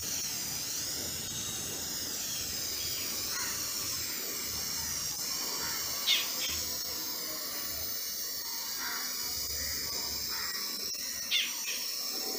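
Aerosol spray-paint can hissing steadily as paint is sprayed onto sheet-metal fence pickets. Two short high squeaks stand out, about six and eleven seconds in.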